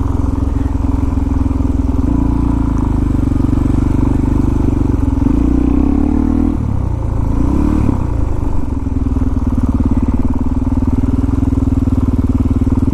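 Suzuki DR-Z400SM's single-cylinder four-stroke engine running at low speed on light throttle. Its note wavers and drops briefly about halfway through, as the throttle is rolled off and back on, then holds steady again.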